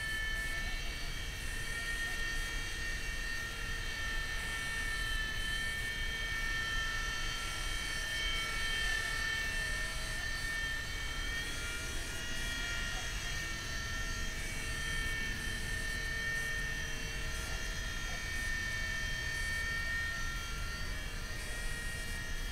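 WLtoys V911 micro RC helicopter hovering: the steady high whine of its small electric motors and rotors, the pitch wavering slightly as the throttle shifts, over a low rumble of light wind.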